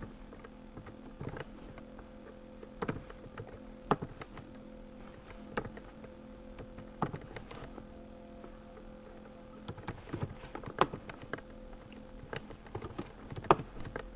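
Computer keyboard being typed on: single key presses about once a second, then quicker runs of keystrokes in the last few seconds, over a faint steady hum.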